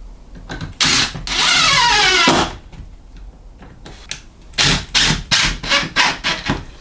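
A power drill runs for about a second, its pitch falling as it bites under load. A few seconds later come about six sharp knocks and clatters of tools or hardware being handled.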